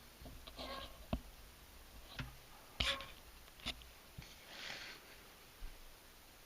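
Handling noise: about six scattered light clicks and knocks of small parts and tools being picked up and set down on a workbench, with a couple of soft rustling hisses.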